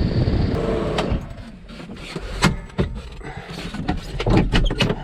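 Tractor engine running, which cuts out about a second in, followed by a series of short knocks and rustles.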